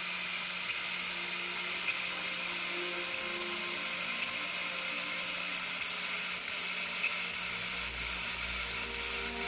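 Electronic static-like noise from the show's soundtrack: a steady hiss that cuts in suddenly, with a faint low hum beneath and a deep rumble swelling near the end.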